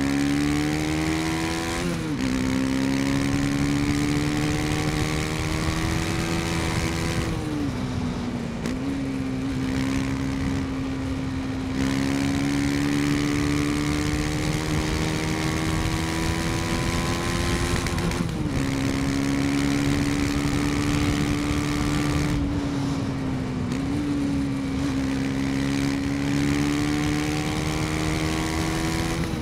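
KTM Duke 250 motorcycle engine under way, pulling steadily with its pitch climbing slowly, dropping briefly four times.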